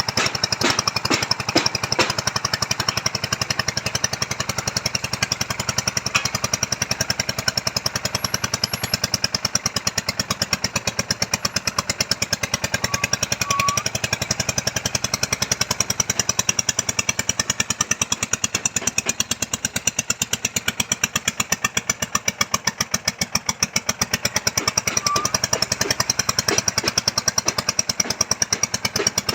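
Engine-driven soil-boring machine for a strauss pile foundation, running steadily with a fast, even knocking rhythm.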